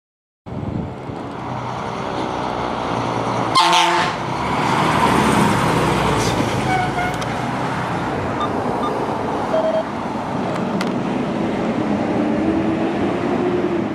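Fire engine passing close, its diesel engine and tyres running steadily, with one short blast of its air horn about three and a half seconds in.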